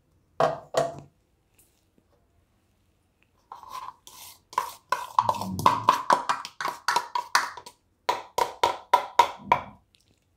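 Mixer grinder jar knocked against the rim of a stainless steel bowl to shake out freshly ground dal powder, the bowl ringing with each knock. Two knocks just after the start, then a quick run of taps, several a second, from about three and a half seconds in until near the end.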